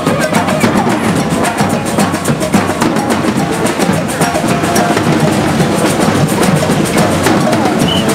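Street drum corps drumming a fast, steady rhythm on snare and bass drums, with a few held tones sounding over the beat.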